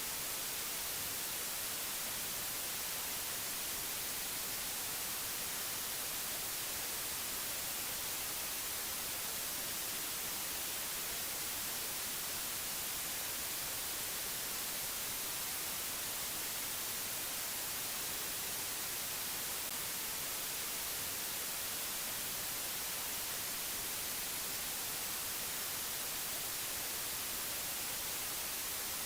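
Steady white-noise hiss, even and unchanging, strongest in the high treble.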